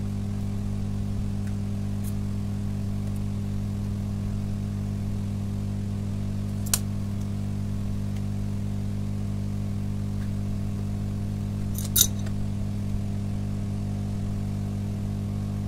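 A steady low hum, with a sharp click about seven seconds in and a louder click about twelve seconds in, as a small charging jack is handled with metal tweezers while it is resoldered.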